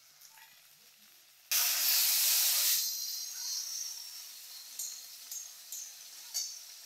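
Chopped tomatoes frying in hot oil in a metal kadai break into a sudden loud sizzle about a second and a half in, which fades over the next few seconds. Near the end a metal spatula scrapes the pan about four times as the tomatoes are stirred.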